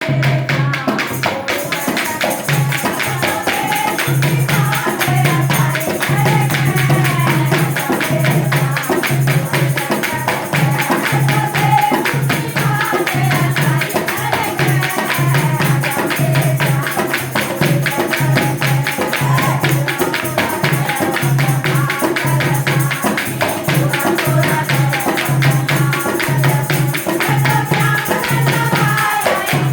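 Haryanvi devotional folk song (bhajan): singing over a fast, steady percussion beat with jingling, tambourine-like percussion.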